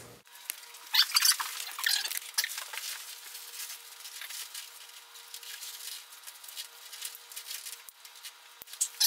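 Rustling and clicking of a heavily loaded backpack's nylon straps and buckles being pulled tight and fastened, in short irregular bursts over a faint steady hum.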